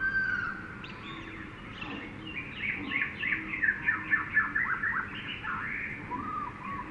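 Jungle ambience of birdsong: a whistled call at the start, then a fast run of short, falling notes in the middle that is the loudest part, over a steady background hum of the forest.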